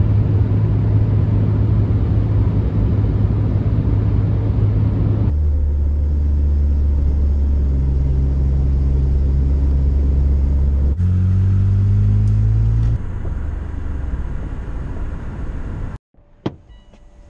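Steady low drone of an SUV's engine and tyres on the road, heard from inside the cabin while driving at speed. Its pitch changes abruptly a few times, and it drops out near the end, leaving a few faint clicks.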